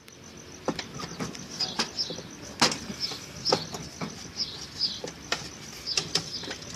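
Irregular clicks and knocks of tools and parts being handled while a washing machine is taken apart, with birds chirping faintly in the background.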